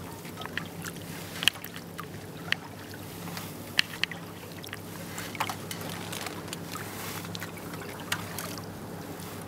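Kayak paddle strokes: a double-bladed paddle dipping and pulling through calm water, with water splashing and dripping off the blades. Several sharp clicks stand out, the loudest about a second and a half in and near four seconds, over a steady low hum.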